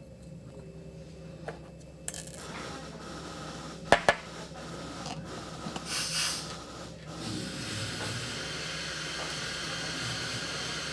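Small metal parts clicking and clinking against a chrome-plated brass scuba regulator first-stage body as it is assembled by hand, with two sharp clicks about four seconds in. A steady hiss sets in over the last few seconds.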